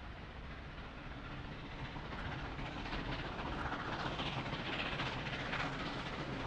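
Steam locomotive hauling a train in the distance, growing louder as it approaches.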